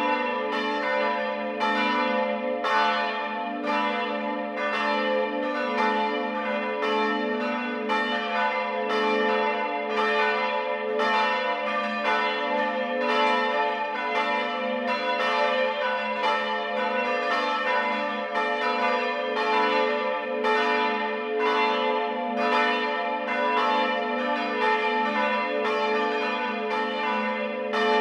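Several church bells ringing together in a full peal, their strokes overlapping at a little over one a second over a sustained hum of ringing bell tones.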